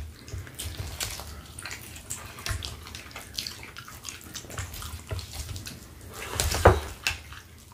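Close-miked chewing and wet mouth sounds of people eating smoked turkey leg, made up of many small irregular smacks and clicks. One louder smack comes near the end.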